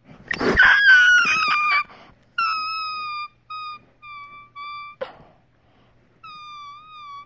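Puppy vocalising while play-biting a hand: a loud, rough call that falls in pitch, then a string of five high, drawn-out whines, the last after a short pause.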